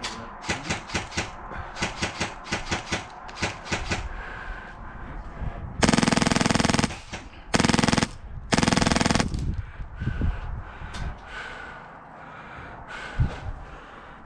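Airsoft guns firing: quick strings of shots in the first four seconds, then three loud bursts of fully automatic fire about six to nine seconds in, each a second or less, then scattered single shots.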